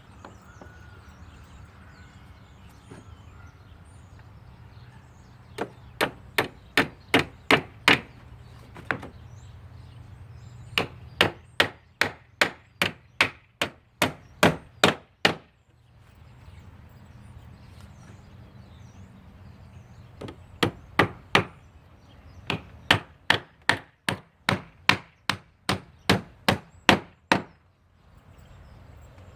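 Hand hammer driving nails into a wooden trim board, in four runs of even strikes at about two to three a second, the runs separated by short pauses.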